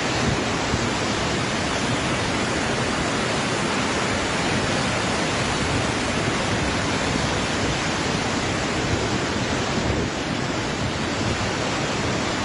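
Muddy flash-flood torrent rushing through village lanes: a loud, steady, unbroken rush of fast water.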